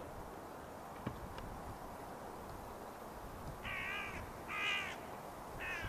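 A crow cawing three times, about a second apart, in the second half, over faint steady background noise.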